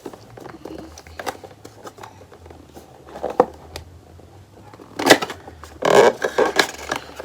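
A perfume box and its packaging being handled and opened: scattered small taps and scrapes, with a louder burst of rustling and crackling about five seconds in.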